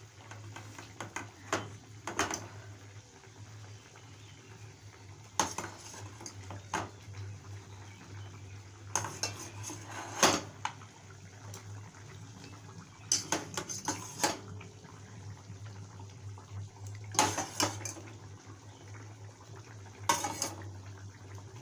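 Metal utensil clinking and scraping against a cooking pan in about six short clusters of clatter, over a steady low hum.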